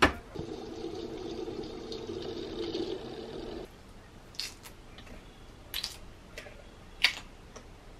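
Tap water running into a stainless-steel sink for about three and a half seconds, stopping suddenly. Then a few short, sharp crackles as lychee shells are split and peeled by hand.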